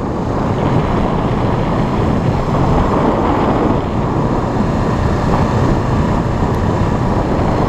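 Steady wind noise buffeting the microphone of a street motorcycle riding at speed along a gravel road.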